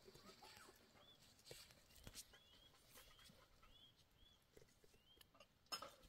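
Near silence with faint, short high chirps repeating about twice a second from a small animal, among scattered light clicks and taps; one sharper click near the end.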